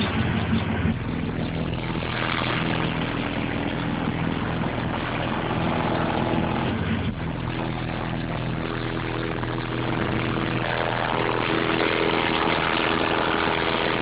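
Single FI BTL 18-inch subwoofer burping a sustained low bass tone inside the car for an SPL reading. The tone comes on about a second in and breaks off briefly about halfway through before carrying on, with the car's engine idling underneath.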